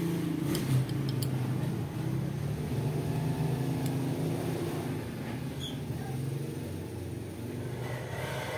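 A steady low rumble in the background, with a few light metal clicks in the first second or so as an Allen key is worked against a tight screw in a brass pressure-washer pump head.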